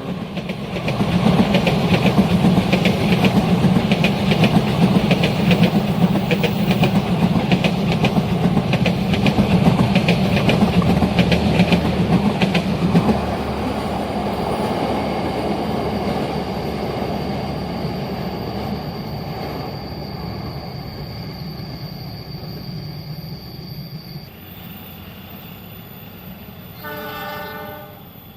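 A train passing close by, its wheels clattering over the rail joints in a quick rhythm, then the sound slowly fading as it moves away, with a thin steady high whine under it. Near the end, a short blast of a train horn.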